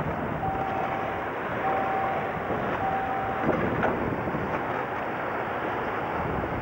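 Wind rushing over the camcorder microphone from the open window of a moving vehicle, a steady noise, with three even mid-pitched beeps about a second apart in the first half.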